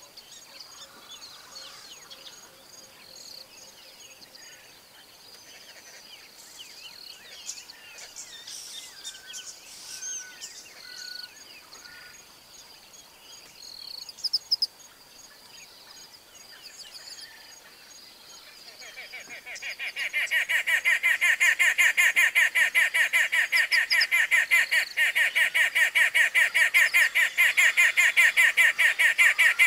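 Bush ambience: scattered small bird chirps and whistles over a faint steady high insect-like tone. About twenty seconds in, a loud, rapidly pulsing animal call starts up and keeps going, drowning out the rest.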